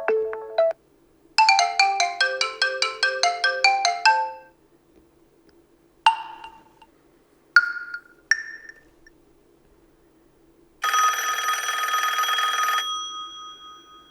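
OnePlus Nord N10 5G built-in ringtones previewed one after another, each cut short: a quick run of bright notes, then three single chimes, then about two seconds of a buzzing electronic trill like a phone ringing that fades out.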